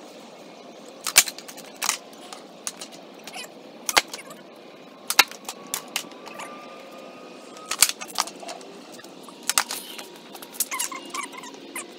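Skateboard smacking against concrete during heelflip attempts: sharp wooden clacks of the tail popping and the board slapping down, coming singly or in quick pairs a second or two apart.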